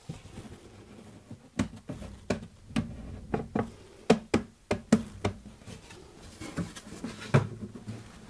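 Light knocks and clicks from a clamped plywood drawer box being handled and tipped up on end on a workbench: wood and bar clamps bumping, about ten separate knocks, with a louder one near the end.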